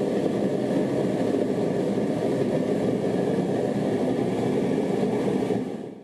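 Propane burner of a homemade foundry furnace running: a steady, deep rushing noise that fades out near the end.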